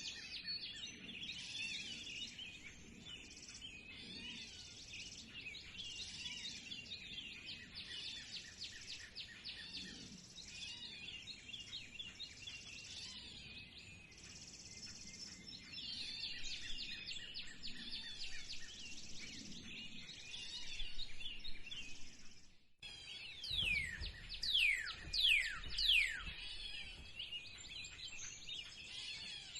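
A chorus of many songbirds chirping and singing together. About 23 s in the sound cuts briefly, then several loud whistled calls slide down in pitch one after another over a low rumble.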